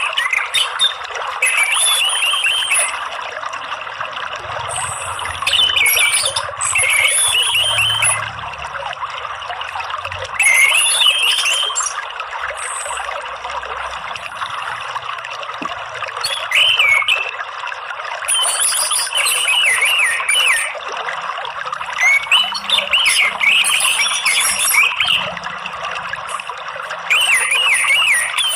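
Orange-headed thrush (anis merah) singing in short warbling phrases every few seconds over a steady trickle of running water.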